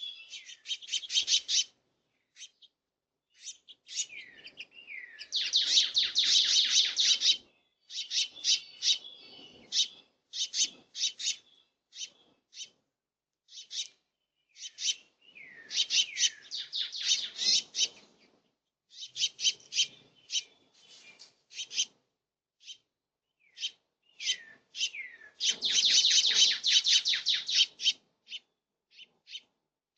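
Birds chattering in bursts of rapid high chirps, with longer, denser runs about five, sixteen and twenty-six seconds in, and a few short calls that slide downward.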